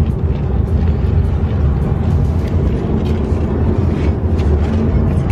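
Steady low rumble of road noise inside a moving car's cabin, heard from the back seat.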